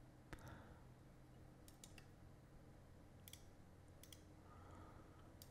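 Near silence broken by faint computer mouse clicks in small groups of one to three, a second or so apart, over a low room hum.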